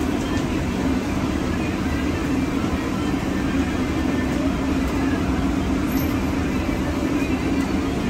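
Steady, loud running noise of restaurant kitchen equipment: a low drone with an even hiss over it. A faint click of a utensil comes about six seconds in.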